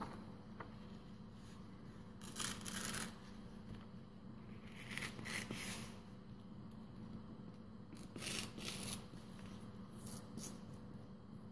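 A sheet of thin origami paper is creased flat and then torn by hand along its fold. It makes about four short papery rips or rubs spread across the few seconds.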